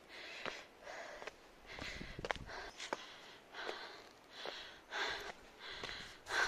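A hiker breathing hard while walking, with quick rasping breaths in and out about once a second and a few short taps between them.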